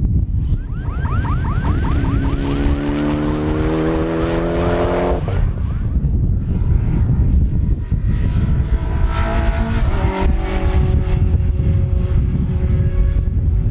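Rally cars at full throttle on a circuit. The first engine's pitch rises steadily as it accelerates and cuts off sharply about five seconds in. A second car's engine is heard from about eight to eleven seconds in. Strong wind buffets the microphone throughout, a heavy low rumble under the engines.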